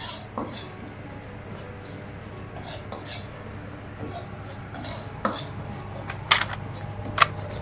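Metal ladle stirring and scraping curry paste and coconut milk around an aluminium wok as the paste fries, in short irregular strokes. Two sharp clinks of the ladle against the wok come near the end, over a steady low hum.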